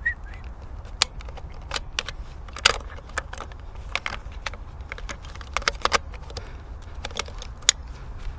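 Irregular crackling and snapping of dry twigs and brush, with rustling, as a person in a ghillie suit crawls over rocky scrub. The sharp cracks come singly and in small clusters every second or so, over a steady low rumble.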